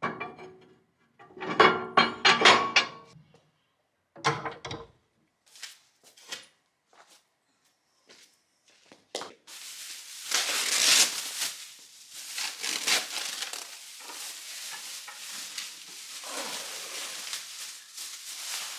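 Household clatter: a few clinks and knocks, some ringing briefly, with short quiet gaps between them. From about ten seconds in, a steady hiss takes over.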